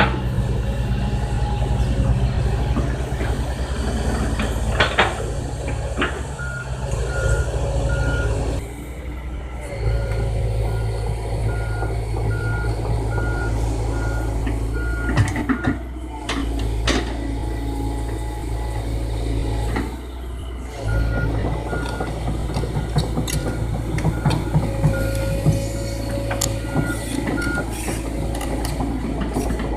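Diesel engine of a Komatsu PC130 excavator running steadily under working load, with a machine's warning beeper sounding about twice a second in two long stretches. Scattered sharp knocks and clanks come through, most around the middle and later on.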